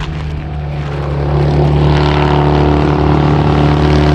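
Motorcycle engine approaching along the road, a steady engine note growing louder over the first second or so, then holding loud.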